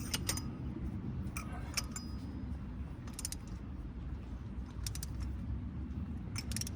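Ratchet wrench clicking in short bursts of a few sharp metallic clicks each, tightening a spark plug into a Toyota Prius's aluminum cylinder head, over a steady low hum.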